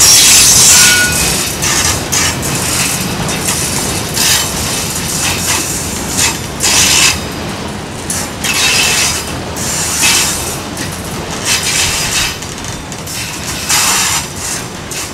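Enclosed autorack freight cars rolling past on a curve: a steady rumble of steel wheels on rail with clacking, and short high-pitched wheel squeals and hisses coming and going every second or two.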